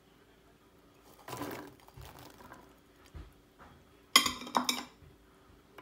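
Pomegranate seeds tipped from a container onto diced fruit in a glass dish: a short rattling patter about a second in, a few small knocks, then a louder clattering burst with clinks against the glass around four seconds in.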